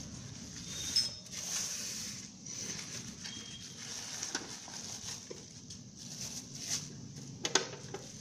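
Clear plastic wrapping bag crinkling and rustling in irregular bursts as hands pull it off a dial scale, with a sharper crackle near the end.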